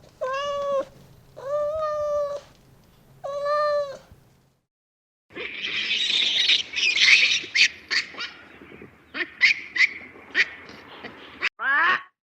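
A cat meowing three times, each meow long and even. After a short gap comes a different animal's run of harsh, scratchy screeches and sharp chirps, which ends in quick falling squeals.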